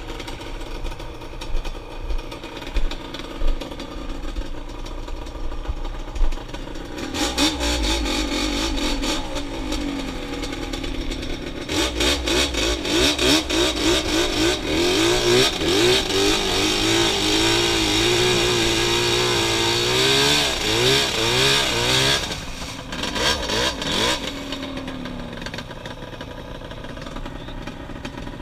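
ATV engine running low with a few knocks and clunks, then revving up and held at high revs for about ten seconds as the quad ploughs through a flooded mud hole. The pitch wavers rapidly as the wheels bog and spin, over a wash of churned water. The revs drop off suddenly, blip once more, and settle back to a low run.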